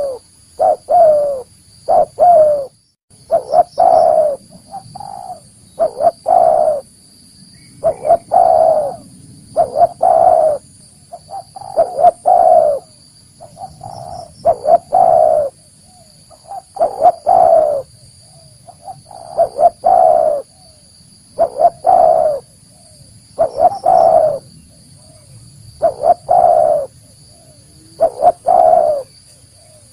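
Spotted dove (tekukur) cooing: a short phrase of several low notes repeated about every two seconds.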